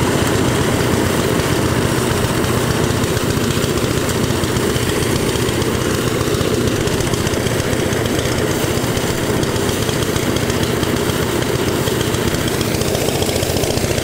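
An engine running steadily at an even speed, loud and unchanging.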